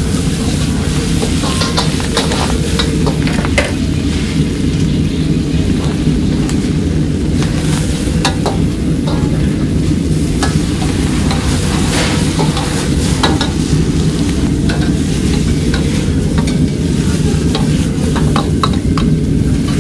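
Leafy greens sizzling as they are stir-fried in a wok, a metal ladle scraping and clanking against the wok in frequent short strokes. Under it runs the steady low rumble of the high-flame gas wok burner.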